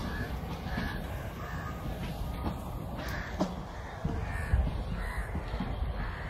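Crows cawing repeatedly, about every half second, over the low rumble of passenger coaches rolling past on the track, with a few sharp wheel clicks.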